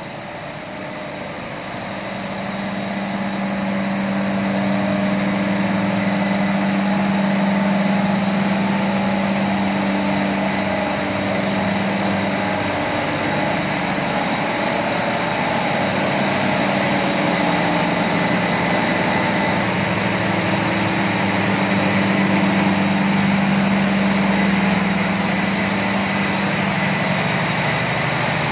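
Ship's engine-room machinery running: the main engine, the turning propeller shaft and the shaft-coupled alternator make a loud, steady drone with a thin high whine over it. It grows louder over the first few seconds.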